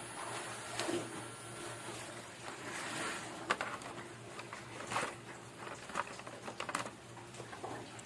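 Handling noise of a handheld milk frother and its plastic packaging tray: scattered light clicks, taps and rustles, the sharpest click about three and a half seconds in, over a faint steady low hum. The frother's motor is not running.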